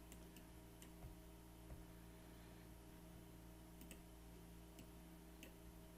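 Near silence with a few faint, scattered clicks of a computer mouse over a low, steady electrical hum.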